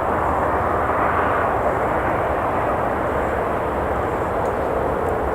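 Steady rush of road traffic, swelling slightly about a second in as a vehicle passes.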